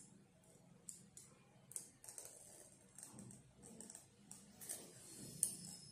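Faint handling sounds of a smartphone's retail box and packaging being unboxed: scattered soft clicks, taps and rustles, with one sharper click near the end.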